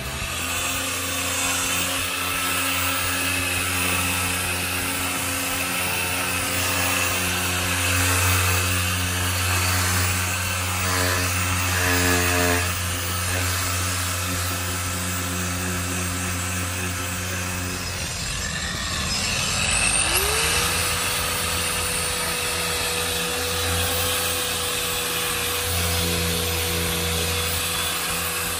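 An electric motor of a cleaning tool running steadily with a hum and whine; about 19 seconds in, its whine sweeps up in pitch and then holds at the higher note.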